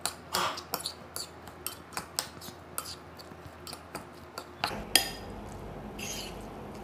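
A spoon clinking and scraping against a bowl while stirring a minced pork filling: a quick, irregular run of clicks that thins out about five seconds in.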